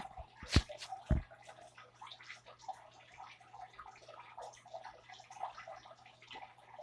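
Water running in the background, a steady patter like a bath or sink filling, with two sharp knocks in the first second or so.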